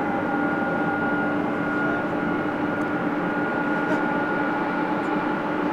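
Boeing 777F jet aircraft running steadily: a constant rushing noise with several held whining tones.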